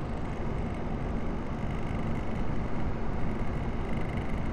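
PC case fan running with a steady whir, a faint low hum and a thin high whine, which the owner takes for a failing fan bearing.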